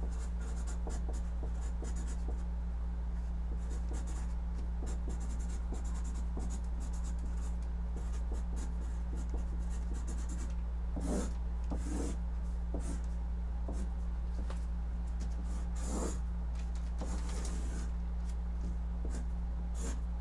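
Marker pen writing on a large sheet of paper: a string of short scratchy strokes, with a few heavier, longer strokes in the second half. A steady low hum runs underneath.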